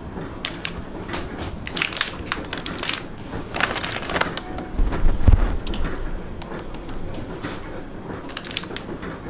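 Plastic microwave rice pouch crinkling and crackling as it is handled, with a low thump about five seconds in.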